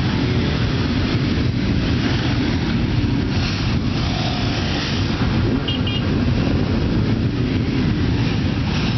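A large pack of motorcycles running together at low speed: a dense, steady mass of engine noise from many bikes filing past in a slow queue.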